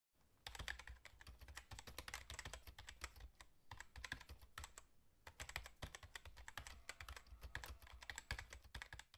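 Computer keyboard typing: a fast run of faint, rapid key clicks, with two short breaks about three and a half and five seconds in.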